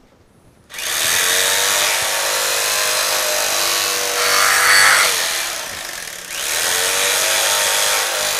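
Electric carving knife running as it slices through a roast stuffed pork leg. It switches on about a second in, gets louder midway as the blades work through the roast, and briefly eases off about six seconds in before picking up again.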